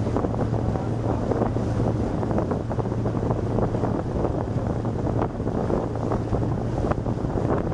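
Yamaha UF-20 fishing boat underway: its engine holds a steady low drone under heavy wind buffeting on the microphone.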